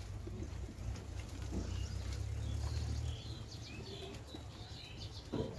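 Scattered faint bird chirps over a low, steady rumble that fades out about three seconds in.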